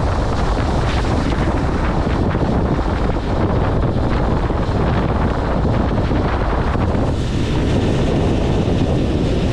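Heavy wind buffeting the microphone aboard a small boat under way, over the steady rush of water and the boat's motor.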